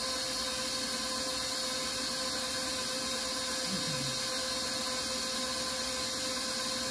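KitchenAid stand mixer running steadily at one speed with an even motor whine, beating cold butter into the flour mixture for a crumbly shortcake dough.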